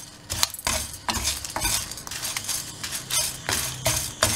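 Wooden spatula stirring and scraping chana dal, dried red chillies and curry leaves as they roast in a nonstick frying pan. Repeated uneven scraping strokes, a few a second, with the dal grains rattling against the pan.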